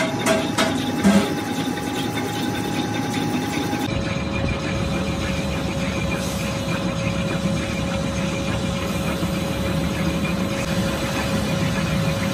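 Metal lathe running steadily while a spinning tap, used as a hob, cuts the teeth of a brass worm wheel, with a few sharp clicks in the first second or so. The pitch of the steady hum shifts about four seconds in.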